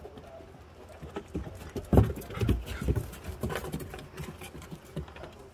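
Dogs' footsteps on a wooden deck: claws clicking and paws thudding on the boards, a quick run of steps that is loudest about two seconds in and tails off after about four seconds.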